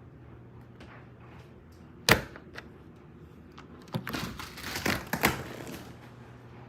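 A sharp thump about two seconds in, then about a second and a half of knocking and scuffling.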